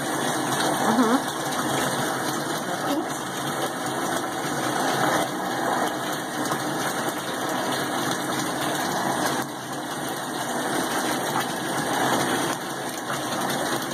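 Jetted bathtub's pump running with a steady hum, churning the bathwater.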